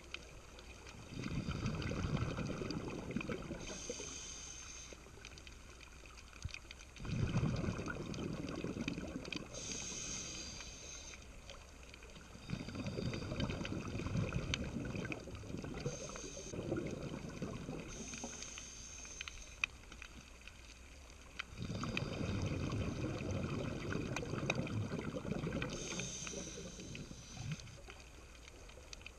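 A scuba diver breathing through a regulator underwater: four long exhales, each a bubbling surge lasting several seconds, with a short higher hiss of the inhale in the gaps between them.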